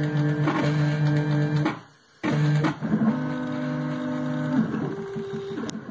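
Stepper motors of a homemade CNC router driving a pen-plotter head, giving off steady whining tones that jump to a new pitch at the start of each move, with a short pause about two seconds in.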